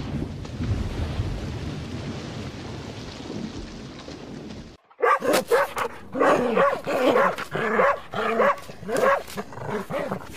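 A steady rushing noise that slowly fades, then, after a short break, a litter of puppies whimpering and yipping: many short, rising-and-falling cries in quick succession, overlapping one another.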